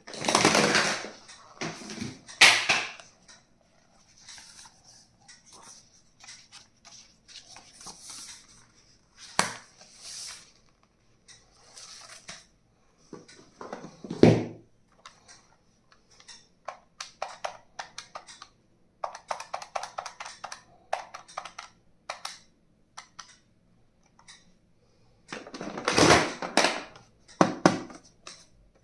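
Hands unpacking and handling plastic stationery and its packaging: rapid clicks, taps and rustling, with a few louder knocks and a dull thump about halfway through.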